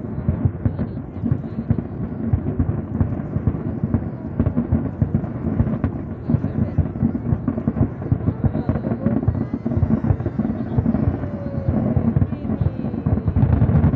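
Fireworks going off in rapid succession, a dense run of booms that merge into a continuous low rumble.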